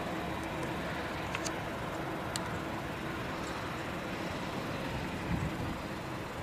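Boeing VC-25A (747) Air Force One's four jet engines at taxi power, heard from a distance as a steady, even noise with a faint low hum.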